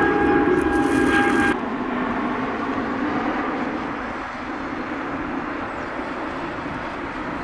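Twin turbofan engines of a Boeing 787-8 Dreamliner climbing out overhead: loud jet noise with a steady high fan whine that cuts off abruptly about a second and a half in, leaving a broad rumble that slowly fades as the jet moves away.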